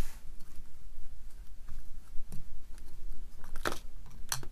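Flat screwdriver scraping and picking at crumbled shock-mount foam in a pocket of the demolition hammer's metal housing: light scratching with scattered small clicks, growing busier and sharper near the end as pieces break loose.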